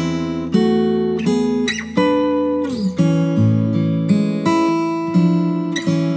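Acoustic guitar playing an instrumental passage, with chords and notes plucked in a steady rhythm about twice a second. Brief sliding squeaks of fingers on the strings come through now and then.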